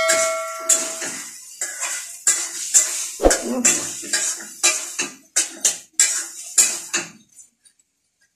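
Potato being sliced into thin strips against the curved iron blade of a boti, a quick cutting stroke about two to three times a second, with the strips dropping into a pot of water. A brief metallic ring at the start; the slicing stops near the end.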